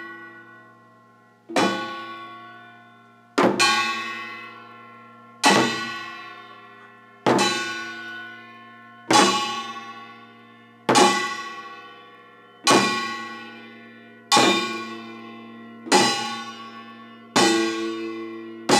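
Slow, evenly spaced strikes on Korean samul nori gongs, each stroke ringing out long before the next. About one strike every two seconds, coming a little faster near the end.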